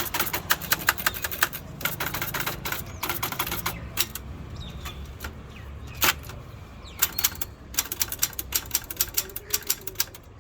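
Antique typewriter being typed on: quick runs of key strikes with short pauses between them, and a single louder clack about six seconds in.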